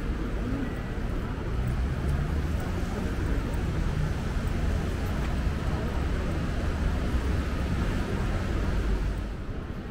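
Steady city street noise: a low traffic rumble under a constant hiss, with no single event standing out, easing slightly near the end.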